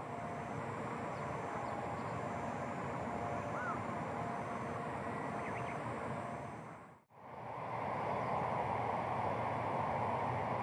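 Steady outdoor background noise with a few faint, brief bird-like chirps. The sound drops out for a moment about seven seconds in, then comes back a little louder.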